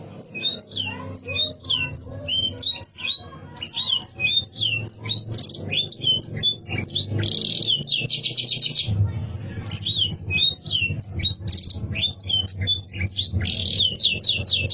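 Domestic canary singing a long, varied song of quick chirping notes, which twice rolls into a fast trill of rapidly repeated notes, about eight and fourteen seconds in.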